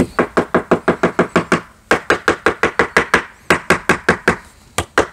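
The dust bag of a Ryobi RROS18C brushless random-orbit sander knocked rapidly against a wooden board to empty out the sanding dust. About seven sharp knocks a second, in three runs with short breaks about two seconds in and again near four and a half seconds.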